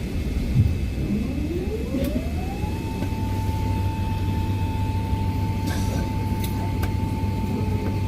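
Low, steady rumble inside an Airbus A380's cabin after landing. A whine rises in pitch over about two seconds and then holds at one steady note, with a few faint clicks.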